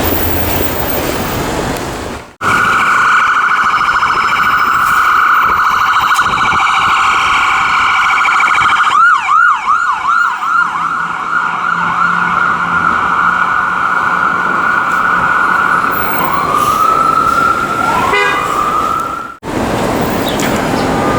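Ambulance siren, loud and close: a long, steady, high tone that cuts in abruptly about two seconds in, changes to a rapid warbling yelp for a second or two about halfway through, then returns to the steady tone. Near the end come two short rising wails before it stops abruptly.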